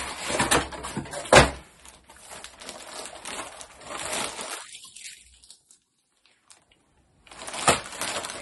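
Packaging being handled and opened: rustling and crinkling with a few sharp knocks, the loudest a little over a second in. It breaks off for over a second of near silence, then resumes.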